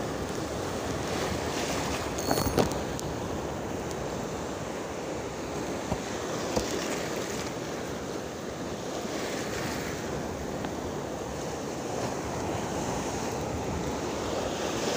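Choppy sea waves splashing and churning around a small boat, with wind buffeting the microphone. A short sharp knock comes about two seconds in.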